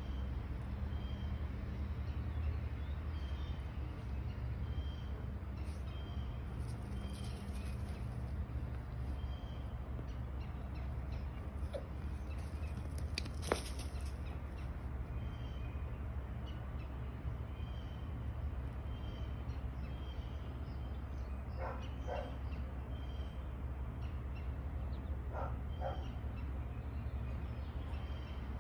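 A small dog giving a few short barks, in two brief clusters about two-thirds of the way in and again a few seconds later, over a steady low rumble. A bird calls faintly and repeatedly, and there is one sharp click near the middle.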